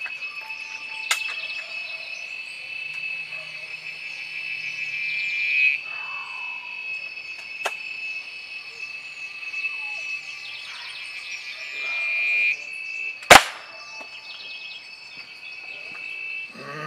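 A single sharp shot from a 5.5 mm Nux B32 spring-piston air rifle about 13 seconds in, the loudest sound, over a steady shrill drone of insects with pulsing chirps.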